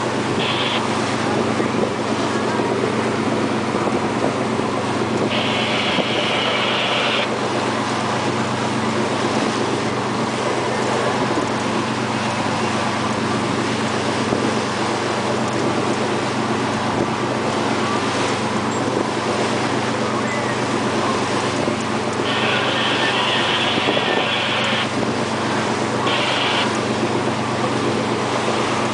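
A boat's engine running steadily under way, with the wake rushing and splashing behind the hull and wind on the microphone. A higher hiss comes and goes a few times.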